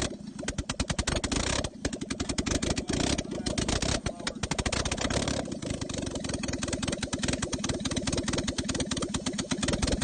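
Freshly rebuilt Honda K-series four-cylinder engine in a Mazda RX-8 running on its first start-up, a rapid even firing beat with a clattery edge.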